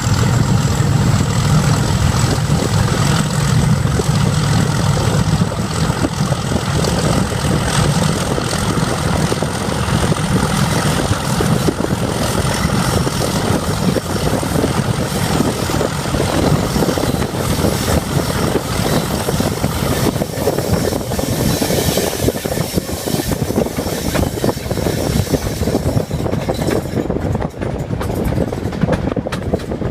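Class 31 diesel locomotive's English Electric V12 engine running hard, a deep engine note over a high whine. The deep note weakens about halfway through while the engine sound carries on.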